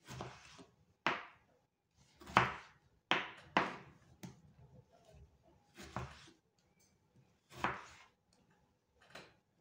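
Knife slicing through tomatoes and striking a wooden cutting board: about eight uneven cuts with short pauses between them.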